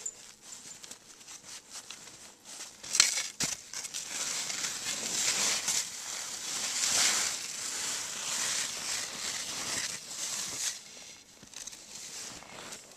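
Skis and boots crunching and swishing through deep, soft powder snow, with a sharp clack about three seconds in.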